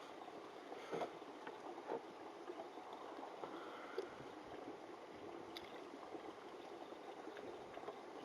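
Faint, soft scraping of a knife edge drawn in slow pull strokes across a wet 1000-grit diamond sharpening stone, with a few light ticks about a second apart near the start, over a steady low hiss.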